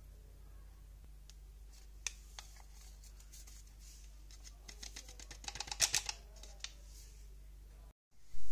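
Paper sachet of baking powder crinkling and crackling as it is shaken out over flour: scattered crisp crackles that thicken into a quick dense run about five to six seconds in. A short gap, then a sudden loud noise right at the end.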